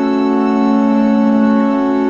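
Background music of slow, sustained chords held without a beat.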